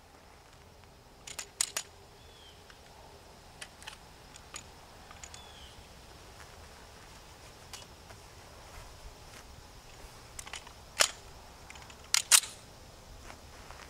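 Sharp mechanical clicks and clacks from handling a Springfield Armory XD40 pistol as it is readied to fire. There is a close pair about a second and a half in, a few faint ticks, and louder clacks around eleven and twelve seconds. A bird chirps faintly twice.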